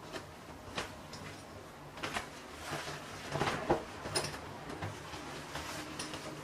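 Handling noise: a few scattered soft clicks and rustles, the busiest stretch a little past the middle, over a faint steady hum.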